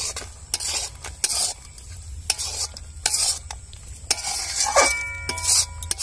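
Metal spatula scraping and stirring thick chilli chicken gravy around a metal kadai in quick repeated strokes, the final stir after ground black pepper is added.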